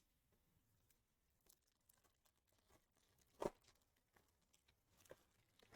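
Near silence with a few faint clicks and rustles of trading cards and pack wrappers being handled, the clearest about three and a half seconds in.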